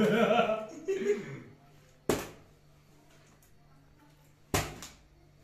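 Plastic water bottle flipped and landing on a carpeted floor, two sharp thuds, one about two seconds in and one near the end. A voice is heard briefly at the start.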